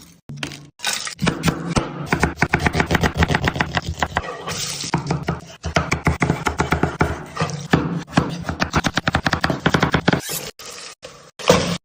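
Rapid run of quick knocks and scrapes from food preparation, many strikes a second, easing off about ten seconds in.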